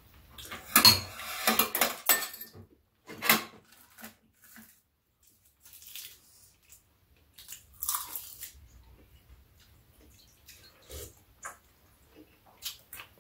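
Eating at a table: metal spoons and chopsticks clinking against ceramic bowls, with chewing and slurping from spoons, in scattered short bursts that are busiest in the first couple of seconds and fall quiet between.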